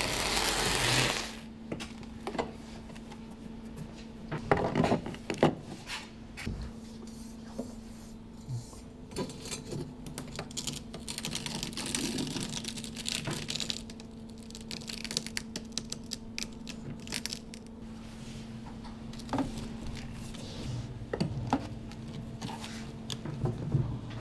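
A brief noisy scrape at the start, then scattered light clicks, taps and metallic clinks as a stainless steel edge trim profile and tiles are handled and fitted, over a steady low hum.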